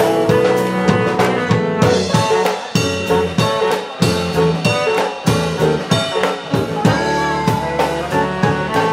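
Live jazz band playing: a drum kit keeps a steady beat under saxophone lines, with keys and bass.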